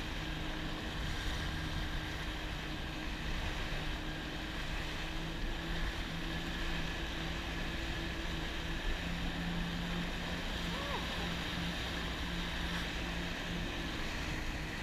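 Jet ski engine running steadily at speed, its hum unchanging, over the rush of wind on the microphone and churning water from the wake.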